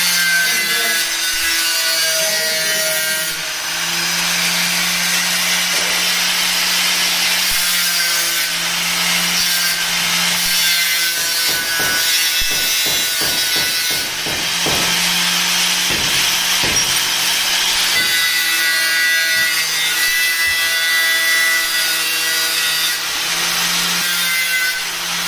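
Hand-held angle grinder cutting through a metal rod: a steady, loud, high grinding hiss over the motor's hum, easing off briefly a few times.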